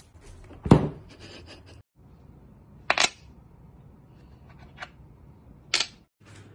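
Four short, sharp knocks and taps, spaced about a second or two apart, over faint room noise; the first, about a second in, is the loudest and has a dull thud in it.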